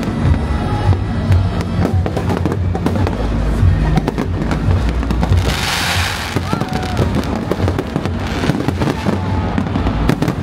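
Aerial fireworks bursting in quick succession: a dense run of bangs and crackles over a low rumble, with a loud crackling hiss a little past the middle.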